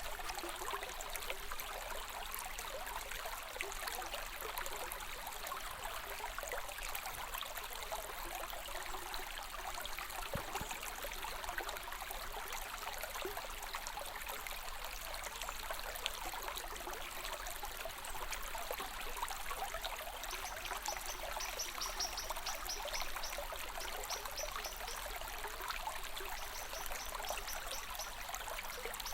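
Water running steadily in a stream, an even trickling rush that does not let up.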